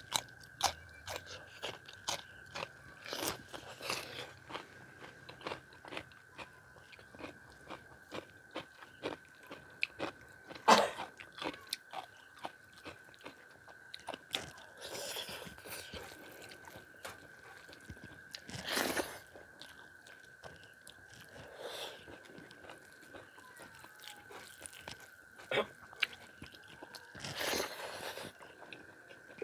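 Close-miked eating: a man bites into raw cucumber and chews mouthfuls of rice and chicken chilli eaten by hand, with scattered sharp crunches and wet chewing clicks, one crunch loudest about eleven seconds in. A faint steady high hum runs underneath.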